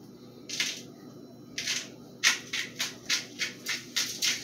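Black pepper shaker shaken over a mixing bowl: two single shakes, then a quick run of about five shakes a second from about two seconds in.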